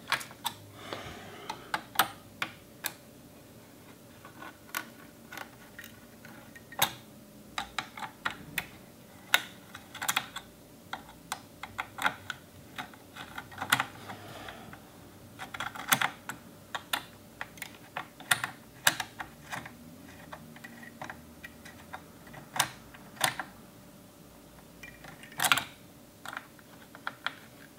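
Small screwdriver clicking and ticking against the screws and metal heat sink on an iMac logic board as the screws are worked loose: irregular sharp clicks, some in quick clusters.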